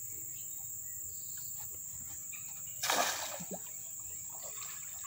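Long-handled landing net swept through shallow, muddy pond water, a short splashing swish about three seconds in. A steady, high insect drone runs underneath.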